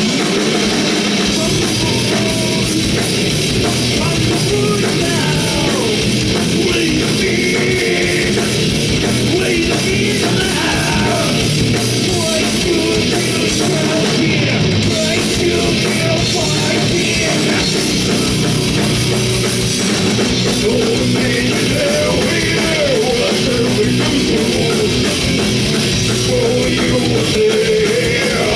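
A heavy rock band playing loud at full volume, with drum kit, distorted guitars and bass, and wavering vocals over the top.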